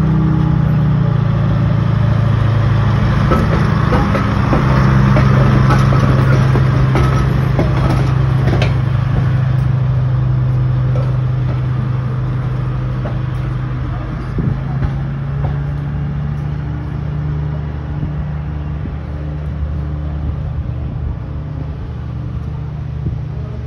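Historic trolley car rolling slowly along its track with a steady low mechanical hum, and a run of sharp clicks from the wheels and running gear as it passes.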